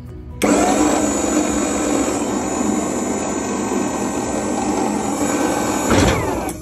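The electric hydraulic pump motor of a Maxon liftgate starts abruptly about half a second in and runs steadily, powering the gate up. Near the end it shuts off with a short falling whine as it spins down.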